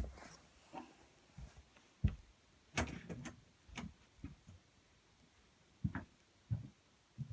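Scattered knocks and thumps, about a dozen at uneven intervals, with a gap of a second or two just after the middle; the loudest falls about three seconds in.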